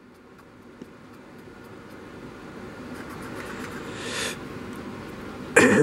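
A water-dampened cotton swab rubbing along the plastic body of an HO-scale model locomotive, wiping off a weathering wash: a soft, rough scrubbing that slowly grows louder, with a brief louder scrub about four seconds in.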